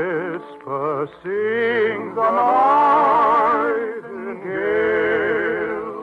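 Operetta singing: voices with strong vibrato holding long, swelling notes in a slow serenade, over musical accompaniment.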